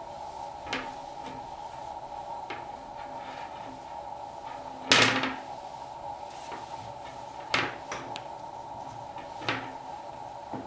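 Handling sounds from macrame knotting on a plastic hoop: five short knocks as the hoop and cord are moved and pulled against the table, the loudest about five seconds in, over a steady faint hum.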